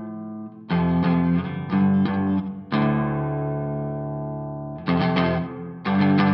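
Background music: distorted electric guitar chords struck one after another, one chord in the middle left ringing out and fading for about two seconds.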